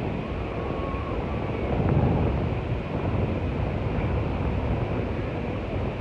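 Surf breaking and washing up a sandy beach, heard as a steady rushing noise, with wind rumbling on the microphone.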